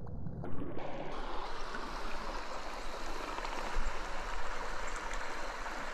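Trout stream running steadily, an even rush of water. It opens up from a muffled low rumble to the full sound about half a second in.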